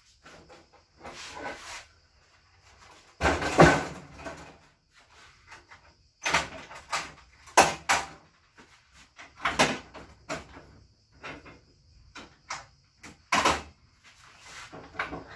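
Objects being handled and set down, giving an irregular string of knocks and clunks. The loudest comes about three and a half seconds in, with several more spread through the rest.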